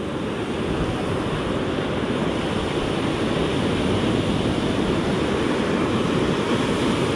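Surf breaking and washing up a sandy beach: a steady rushing noise.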